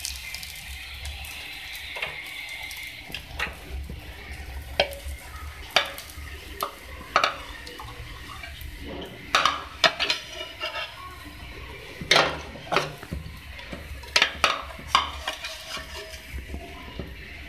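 Cooking utensils clinking, knocking and scraping against a frying pan and plate as fried potato shami kebabs are lifted out, in irregular scattered clicks with a busier cluster a little after halfway. Oil sizzles in the pan for the first few seconds, then fades.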